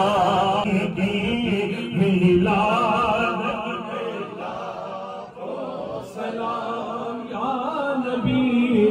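Male voices chanting an Urdu devotional salaam, a lead voice through a microphone carrying the melody, with a short break about five seconds in.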